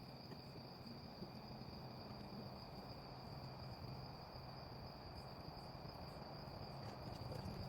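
Crickets chirring in a steady, unbroken night chorus, faint, with a low steady hum underneath.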